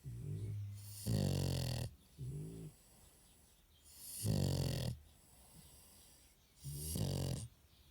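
Sleeping bulldog snoring loudly, a rattling snore on each breath that returns about every three seconds, some breaths coming as a pair of snores.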